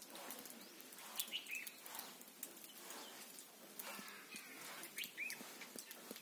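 Small birds giving a few short chirps now and then, with light clicks and taps scattered throughout.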